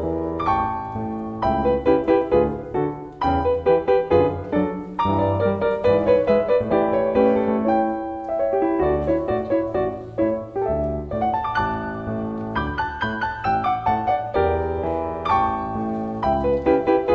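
Piano music: a quick run of notes in the melody over low bass notes that come back every second or two.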